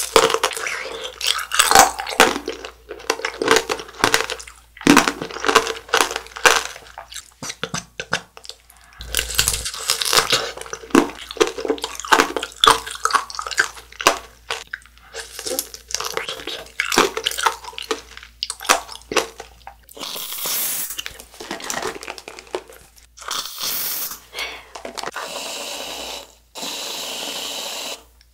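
Close-miked biting and chewing of fresh white strawberries: wet, crunchy mouth sounds in quick irregular strokes. In the last eight seconds or so, an aerosol can of whipped cream sprays in several hissing bursts, the last one longest.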